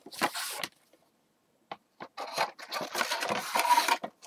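Paper and cardboard packaging rustling as instruction leaflets are handled and laid on a desk: a short rustle, a pause with one small click, then about two seconds of steady rustling and shuffling.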